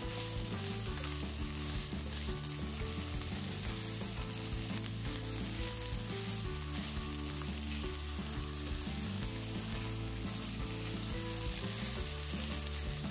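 Shredded cooked chicken sizzling steadily in a hot non-stick frying pan while a silicone spatula stirs and turns it.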